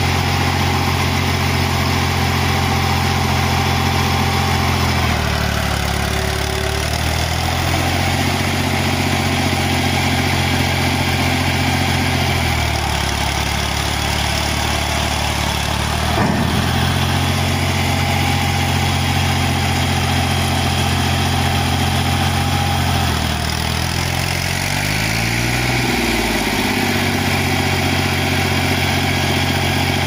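Diesel engine of a Fiat Ghazi farm tractor running under load while its rear wheel is stuck in a muddy canal. The engine note dips and recovers three times, once with a short rise and fall in speed. There is one sharp knock about sixteen seconds in.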